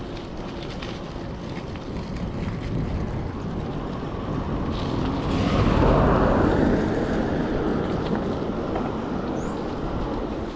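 Wind and road noise from riding a bicycle, rushing over the camera microphone, swelling to its loudest about halfway through and then fading.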